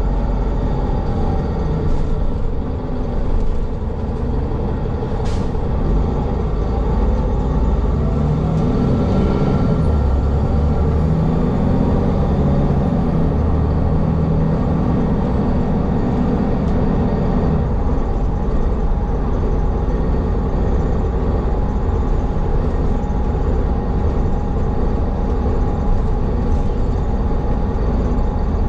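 City bus heard from inside while riding: steady engine and road rumble, with the engine note shifting for a few seconds around the middle and a brief sharp click about five seconds in.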